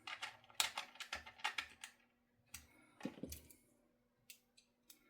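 Irregular light clicks and taps of small guitar parts being handled and fitted, in quick clusters during the first two seconds, then scattered ticks.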